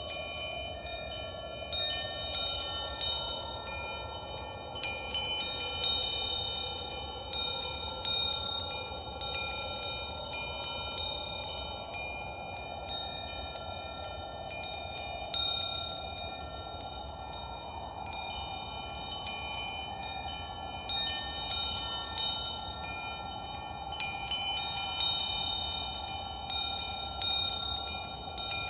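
Wind chimes ringing in irregular clusters, each struck tone held and decaying, over a soft, slowly swelling and ebbing whoosh.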